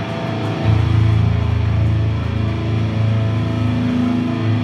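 Sustained low drone from the band's amplified instruments: a held low note with a slight even throb, swelling about a second in, with no drum hits.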